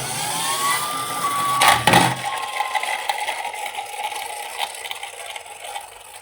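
Police siren wail, rising to a high tone and slowly falling, over a clattering mechanical rattle. There is a sharp knock about two seconds in, after which the rattle drops away.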